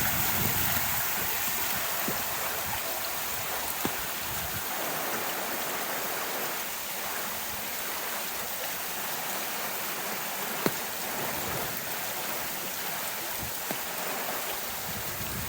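Flash floodwater rushing steadily down a road, with two brief clicks, one about four seconds in and one near eleven seconds.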